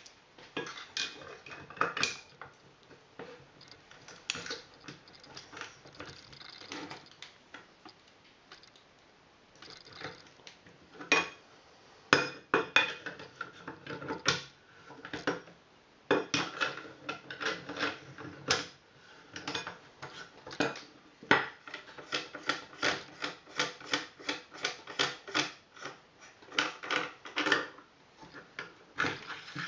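Metal clicks and clinks of a gas blowback airsoft rifle's front end being taken apart by hand, with a wrench working the barrel nut. The clicks are scattered at first. In the second half they come as a quick, even run of about three or four a second.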